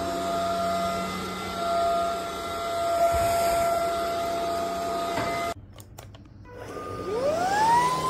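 Cordless stick vacuum running with a steady motor whine, cutting off abruptly about five and a half seconds in. About a second later a vacuum motor spins up with a rising whine that levels off into a steady high whine.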